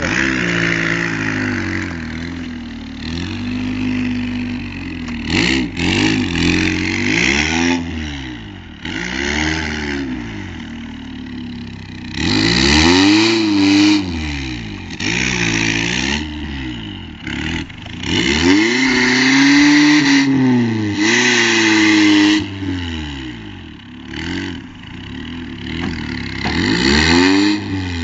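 Fiat Panda's engine revving up and down again and again as it pushes a round hay bale through a stubble field, the pitch climbing and dropping every few seconds and loudest in a few longer hard revs.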